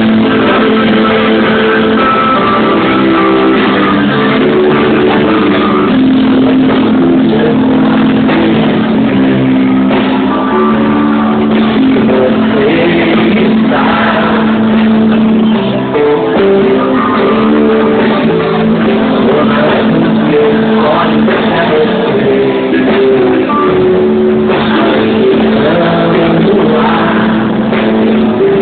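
Live band music played loud, with an acoustic guitar strummed at the front of the sound.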